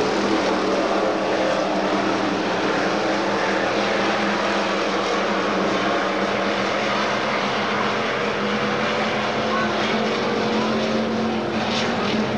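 A pack of IMCA stock car V8 engines running at racing speed around a dirt oval, a steady, unbroken drone of several cars at once, recorded through a VHS camcorder's microphone.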